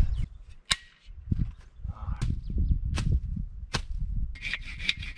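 Hand tool hacking at cactus and thorny brush: a few sharp, separate chops, then a quicker run of rasping strokes near the end.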